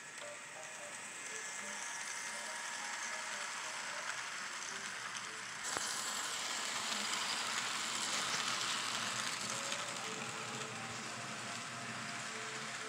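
N scale model train running on the layout track: a steady mechanical rattle of wheels and motor, louder from about six seconds in.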